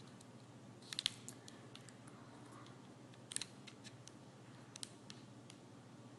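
Faint, scattered small clicks and taps, a few bunched in quick clusters about one, three and a half and five seconds in, over a low steady hum.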